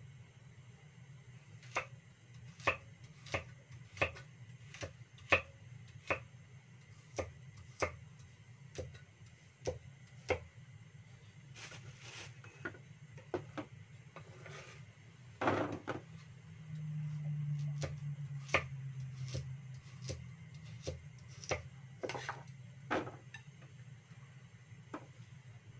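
Cleaver chopping carrots on a thick wooden chopping board: a regular run of sharp knocks, about one and a half a second. About halfway through the chopping pauses, there is one louder thump and a low hum for a few seconds, and then the knocks start again.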